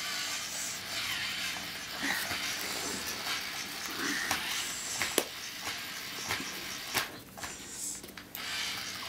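Wooden pieces of a birdhouse kit knocking lightly together as they are slotted into place, with a sharp click about five seconds in and another about seven seconds in, over a steady hiss.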